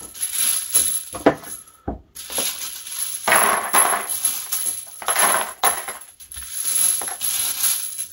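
Handfuls of tumbled 6.5 Creedmoor brass cartridge cases clinking and rattling as they are dropped into a gold-panning pan, in repeated jingling clusters about a second apart.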